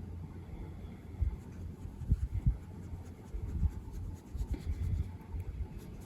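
Soft scratching strokes of a colouring tool working on paper, with irregular low bumps and knocks from the tool and hand against the page and table.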